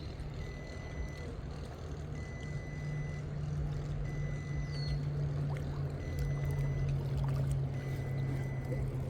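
Steady low motor hum that grows louder about two seconds in, with a faint short beep repeating about every two seconds.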